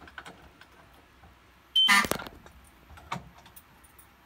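Fire alarm horns sound in one short buzzy blast of about half a second, then cut off abruptly. The system goes off only briefly after the pull station is pulled instead of staying in alarm.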